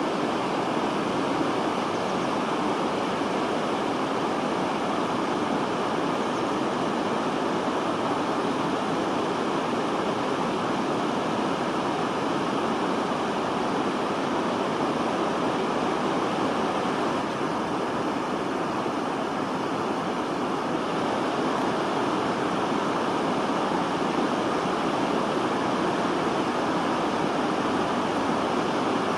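Steady rushing of river water at a weir, an even, unchanging noise.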